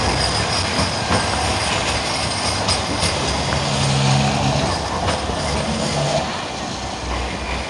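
A coupled pair of Bombardier M5000 trams running past on street-embedded track: a steady rumble of wheels on rail, easing off slightly near the end as the last car goes by.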